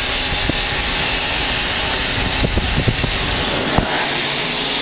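Steady rushing hiss of air from a vacuum cleaner and blower pumping down a large aluminum tank, heard from inside the tank, with a few light knocks. About four seconds in there is a sharper knock and the low rumble drops away.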